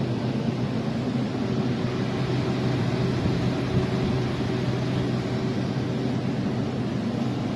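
Evaporative humidifier fan running steadily: an even rush of air with a low hum under it.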